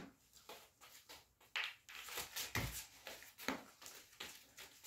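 Scattered light clicks, brief rustles and a soft thump about two and a half seconds in: a person and a dog moving about on the floor.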